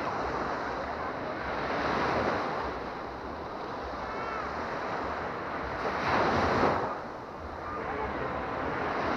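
Small Baltic Sea waves breaking and washing up a sandy beach. The surf swells and eases every few seconds and is loudest about six seconds in.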